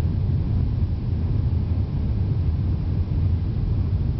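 Steady low rumble inside the cabin of a Qantas Airbus A380 on its takeoff run, from its four Rolls-Royce Trent 900 engines and the roll along the runway.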